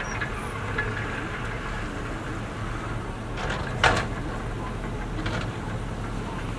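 Heavy diesel earthmoving machinery running with a steady low engine drone. A few sharp knocks come through, the loudest just under four seconds in.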